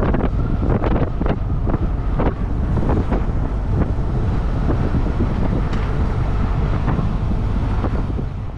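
Wind buffeting a helmet-camera microphone on a moving motorcycle, with the engine and road noise underneath. It fades away near the end.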